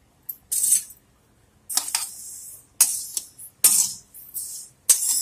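Steel spoon stirring undissolved sugar and water in a steel kadhai: a gritty, jingling metal-on-metal scrape in short strokes, about one a second.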